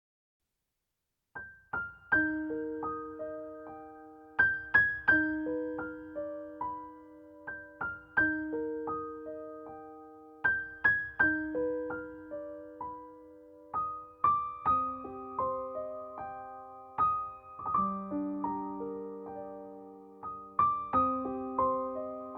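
Gentle piano music: notes struck one after another in rolling arpeggios, each left to ring and fade, starting about a second in.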